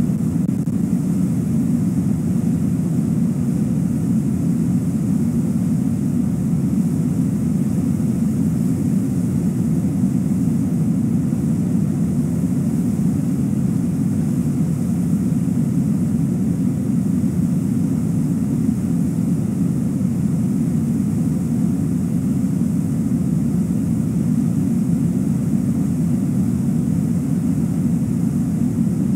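River rapids rushing: a steady, even roar of water, heaviest in the low range, that stays at the same level throughout.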